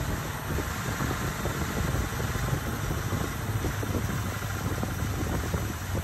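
1969 Ford F250's V8, fitted with an Edelbrock four-barrel carburetor, idling steadily while its idle is being adjusted at the carburetor. The idle screw isn't doing it.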